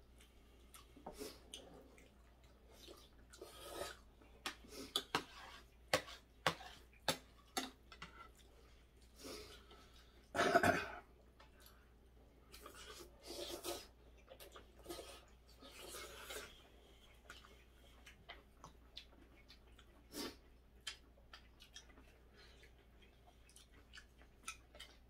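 Meal-table clatter: chopsticks and a fork clicking and tapping on ceramic plates and bowls in scattered sharp clicks, with a few louder bursts of eating noise as noodles are taken into the mouth and chewed.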